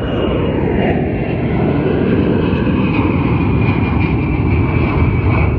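Large four-engine jet transport plane flying low overhead: loud, steady jet engine noise with a high whine that drifts in pitch.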